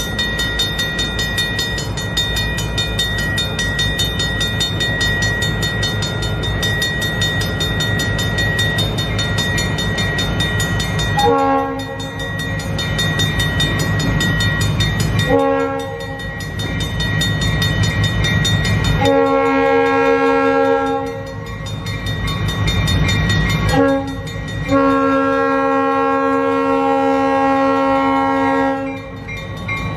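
Diesel freight locomotive's horn blowing a series of short and long blasts over the steady low rumble of the engine. The blasts run short, short, long, short, long in the second half, the last one held about four seconds.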